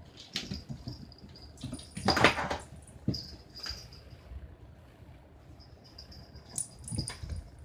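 German Shepherd whining on and off in a high thin tone, with a short, loud rustling scuffle about two seconds in.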